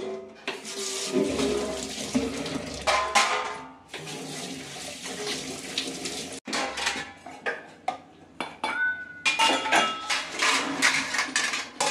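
Tap water rushing over a stainless steel plate as it is rinsed in the sink, then, after about six seconds, stainless steel plates and tumblers clattering and clinking as they are set down and stacked, one plate ringing briefly.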